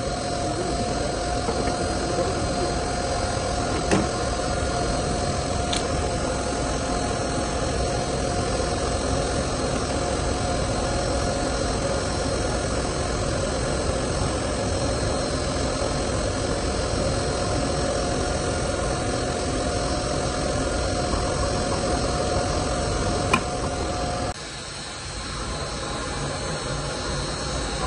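Zumex orange juicer's electric gear motor running with a steady whine, cutting off about 24 seconds in and leaving a quieter background hum. A couple of faint clicks along the way.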